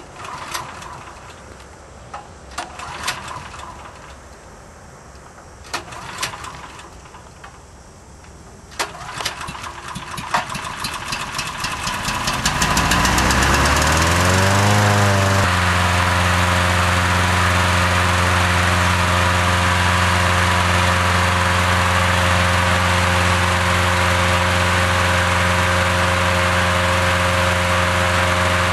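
Petrol-engined inflator fan being pull-started: a few short tugs on the cord, then the engine catches about nine seconds in, speeds up with a rising whine and settles into a steady running note as the fan blows cold air into the airship envelope.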